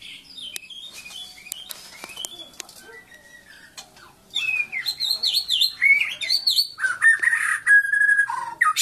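White-rumped shama singing: soft chirps and calls at first, then, about four seconds in, a loud, varied song of quick down-slurred whistles. It ends in a long held whistle and a falling note.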